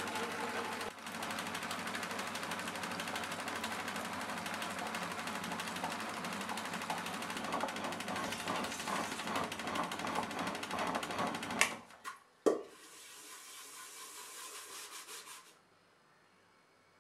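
Stone wet grinder running, its roller stones turning through thick batter in the steel drum with a steady rumbling churn. About twelve seconds in come two sharp clicks, then a quieter stretch that stops a few seconds later.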